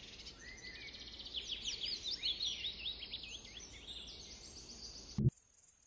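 A small bird singing a quick run of repeated down-slurred chirps over a faint steady outdoor background noise; everything cuts off suddenly about five seconds in.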